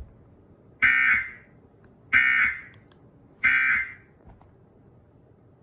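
Emergency Alert System end-of-message data tones: three short, buzzy digital bursts about 1.3 seconds apart, signalling the end of the alert.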